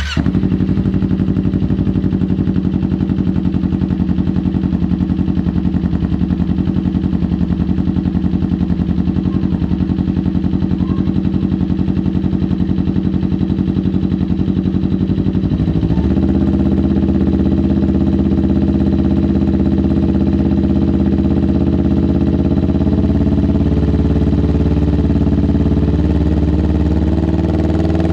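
Kawasaki Ninja 250 parallel-twin engine idling through an R9 GP SS aftermarket exhaust, a steady note that shifts slightly about halfway through.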